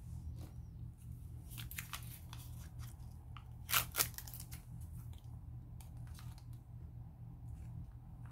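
Small scissors snipping and a small plastic package crinkling and tearing as it is cut open, with scattered clicks and two louder sharp snips a little under four seconds in, over a steady low hum.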